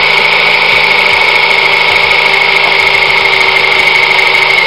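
Small electric RC motor running flat out on direct battery power with no speed control, driving a paddle wheel through a spur gear and a fuel-line belt. It makes a loud, steady high-pitched whine over a dense whirring drive noise.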